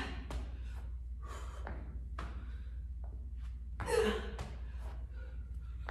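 A woman breathing hard into a close microphone during squat thrusts: repeated sharp breaths and huffing exhales, with a louder gasp about four seconds in. Light taps of hands and feet landing on the rubber floor come between them, over a steady low hum.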